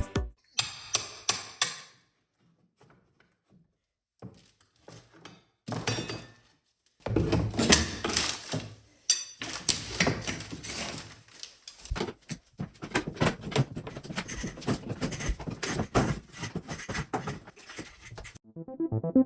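Hand demolition on an interior house wall: irregular knocks, thunks and scraping. It comes in short bursts with pauses at first, then runs busily from about seven seconds in and stops shortly before the end.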